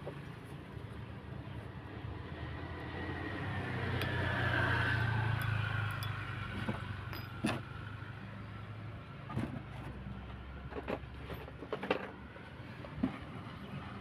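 A motor vehicle passing by, its engine hum and a gliding whine swelling and fading over a few seconds. It is followed by a series of separate sharp clicks and taps.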